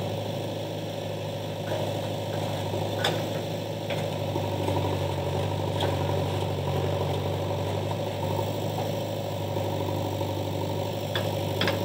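JCB backhoe loader's diesel engine running steadily while the backhoe arm and bucket work against a tree trunk, with a few faint clicks.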